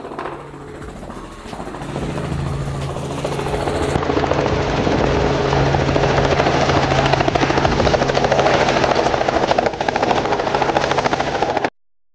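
Helicopter rotor and engine running, growing louder over the first few seconds and then holding steady with a fast, dense beat, before cutting off suddenly near the end.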